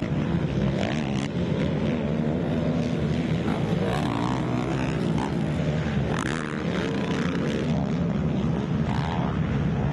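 Several racing quad (ATV) engines running hard together, their pitch rising and falling as the riders rev, shift and lift off through the track.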